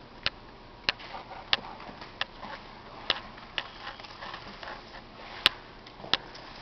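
A series of sharp clicks or taps, about one every two-thirds of a second, with a louder one near the end.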